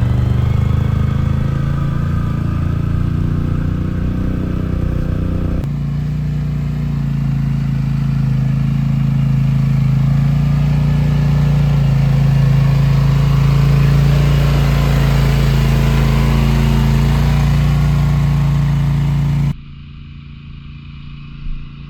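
ATV's 1000 cc V-twin engine running at steady revs. The sound shifts abruptly about six seconds in, then holds steady before dropping sharply to a much quieter level near the end.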